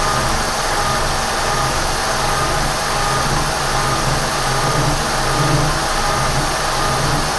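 Kearney & Trecker 307 S-12 horizontal milling machine running under power feed, its staggered-tooth cutter cutting steadily. A low rhythmic throb repeats throughout under the running machine.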